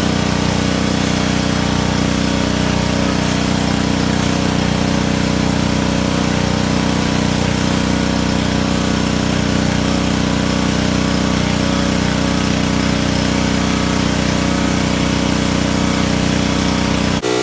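Small gas engine of a pressure washer running steadily at one speed, with a steady hiss over it; it cuts off suddenly at the end.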